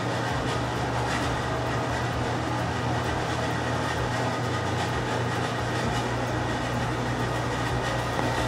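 A steady low mechanical hum with an even hiss over it, unchanging throughout.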